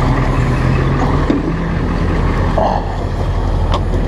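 Vehicle engine running steadily at close range, its pitch shifting slightly about a second and a half in.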